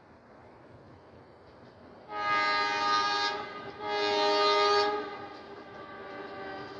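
Train horn sounding two blasts, each about a second long, the first slightly longer.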